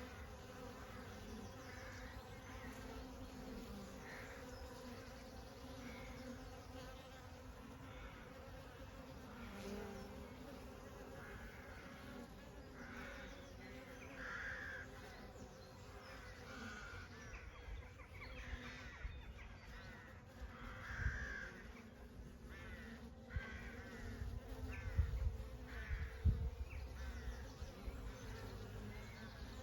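Honey bees buzzing steadily in a swarm-like drone, with brief calls in the background and a few low thumps in the second half.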